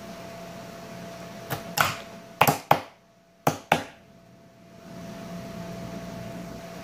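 Slime popping as fingertips press and poke into it: six sharp pops in three quick pairs, between about one and a half and four seconds in, over a steady background hum.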